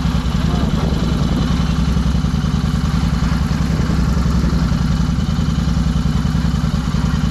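Royal Enfield Continental GT 650's parallel-twin engine idling steadily, with a fast even pulse.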